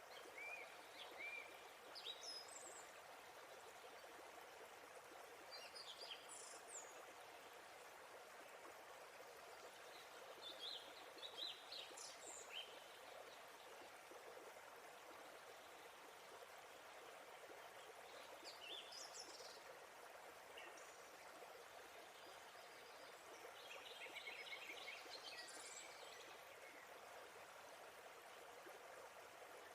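Quiet, steady rush of a waterfall, with birds chirping in short phrases every few seconds and a longer run of rapid repeated notes near the end.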